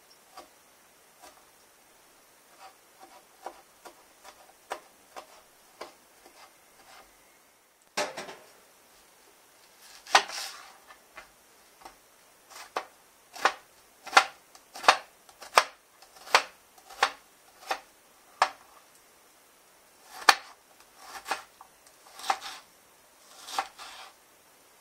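Kitchen knife slicing garlic cloves on a plastic cutting board with light, quick taps, then cutting up an onion. The louder knocks of the blade on the board come evenly, about one and a half a second, in runs.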